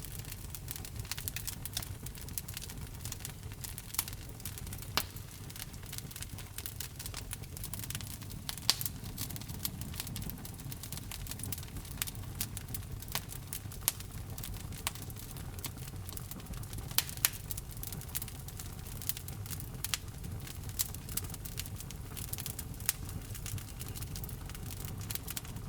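Wood fire burning in a fireplace: a steady low rumble of flames with irregular crackles and a few louder pops.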